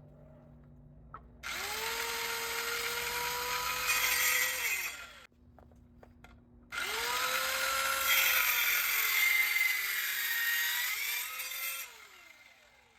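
An electric power saw cutting scrap wood, run twice: each time the motor whines up to speed, cuts, and winds down. On the second cut the motor's pitch sags as the blade comes under load.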